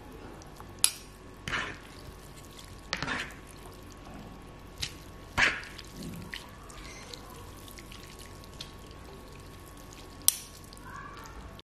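Fork and spoon stirring and lifting a plate of fried instant noodles: scattered soft wet squelches, with two sharp clinks of metal cutlery on the plate, about a second in and near the end.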